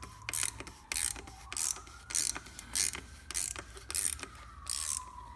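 Ratchet wrench clicking in repeated short strokes, about one every half second or so, as it loosens the oil filter housing cap. A faint tone slides slowly down and back up behind it.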